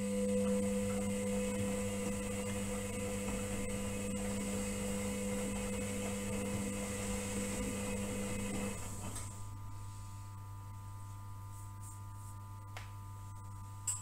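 Indesit front-loading washing machine in its wash phase: the drum motor hums as the towels tumble and slosh in sudsy water. About nine seconds in the motor stops and the drum pauses between turns, leaving a steady low hum, and a single click comes near the end.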